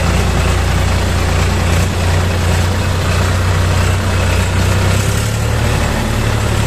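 Small farm tractor's diesel engine running steadily as the tractor drives over a rough, wet, stony track. The tyres on the stones and water add a steady rushing noise.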